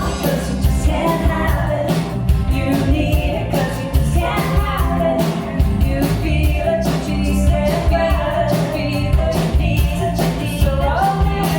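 Rock band playing live with a lead singer, over a steady drum beat.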